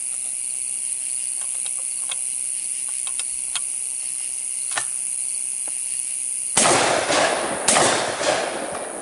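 Small clicks of shells being handled and loaded into a broken-open 12-gauge over-under shotgun, then two shotgun shots about a second apart near the end, one from each barrel, each trailing off. Crickets trill steadily throughout.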